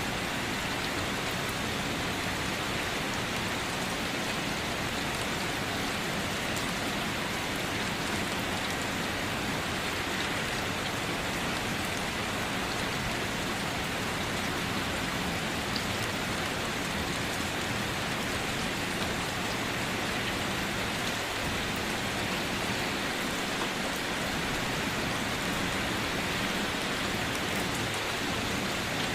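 Steady rain falling and pattering on surfaces, an even hiss without let-up.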